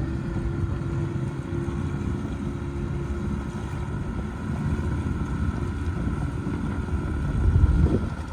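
Small outboard motor running steadily, with a low rumble that grows louder near the end.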